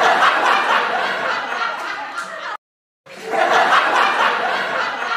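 Canned studio-audience laughter that stops dead about two and a half seconds in. After a brief silence, the same laughter clip starts again.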